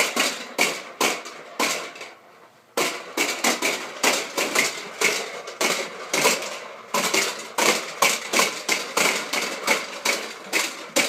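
A rapid series of sharp knocks or clacks, about two to three a second, with a short pause about two seconds in.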